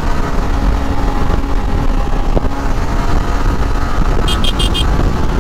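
Motorcycle running at steady road speed, heard from a helmet mic as a dense low rumble of engine and wind. A little over four seconds in, four quick high-pitched beeps cut through.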